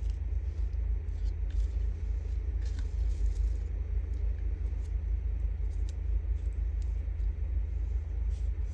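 Steady low rumble, with a few faint light clicks and taps from silk flowers being handled and picked out of a clear plastic box.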